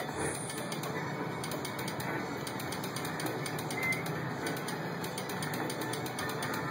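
Merkur Rail Road video slot machine playing its rapid clicking reel-spin sounds as it runs one free game after another.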